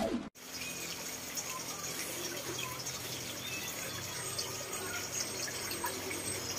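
A short falling sweep at the very start, then a steady, even background hiss with a few faint, brief high chirps.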